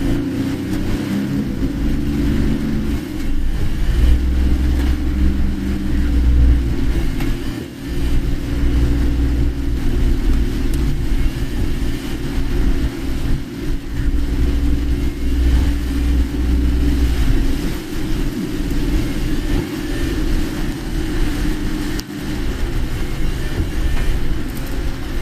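Car engine and road rumble heard from inside the cabin while driving, steady and low-pitched throughout.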